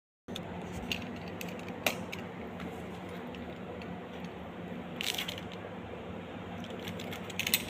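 A steady low hum with a few light clicks and clinks of handling, one about two seconds in, a small cluster around five seconds in, and more near the end.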